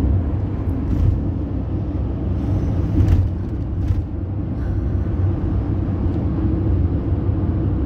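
Steady road noise inside a moving van's cabin: a low rumble of engine and tyres at highway speed, with a few faint knocks from bumps around one, three and four seconds in.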